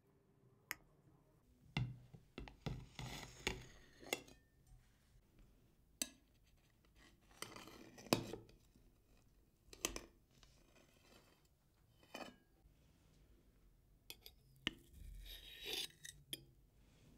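Cutlery and a ceramic plate as a layered cake is cut and a slice is served: about ten sharp clinks and taps, with a few short scraping stretches.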